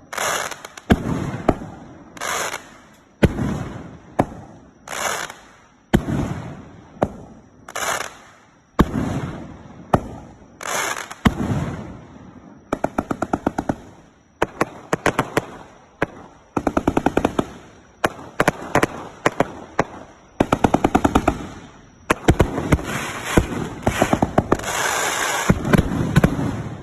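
A 100-shot consumer firework battery (fireworks cake) firing. Single loud shots come about once a second at first. From about halfway on it fires rapid strings of shots in quick succession, almost unbroken near the end.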